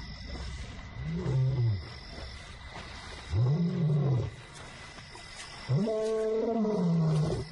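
Young male lion calling out into the night with three drawn-out roars, each rising and then falling in pitch; the third, starting near the six-second mark, is the longest and loudest. These are a lone lion's contact calls, made to locate a separated companion.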